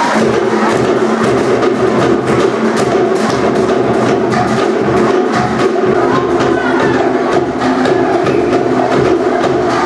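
Cook Islands drum-dance music: fast, continuous beating on wooden slit log drums (pate) over a deeper drum.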